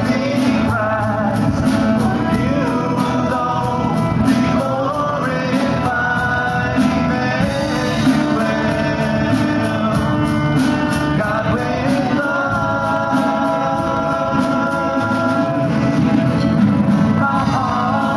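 Live worship band playing a worship song, with a group of male and female singers singing together over the band accompaniment.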